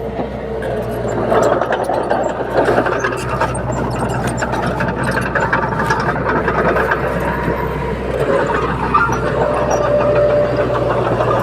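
Komatsu D21P bulldozer's diesel engine running steadily under work, with frequent clicks and clatter over the low engine hum.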